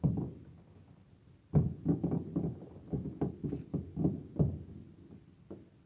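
Firework shells bursting at a distance: one bang at the start, a rapid string of about a dozen bangs over about three seconds, then one more near the end, each trailing off briefly.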